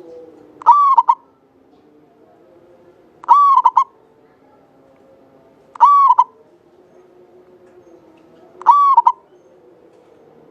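Zebra dove (Javanese perkutut) cooing: four short, clear coos, each a rising note that breaks into a couple of quick notes, repeated about every two and a half seconds.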